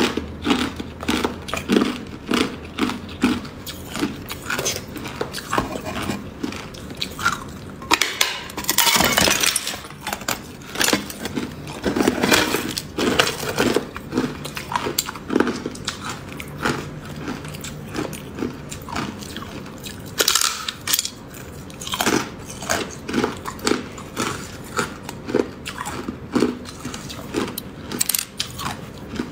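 Hard clear ice being bitten and chewed close to the microphone: a steady run of sharp crunches and cracks, with denser bursts of crunching about eight to ten seconds in, around twelve seconds, and around twenty seconds.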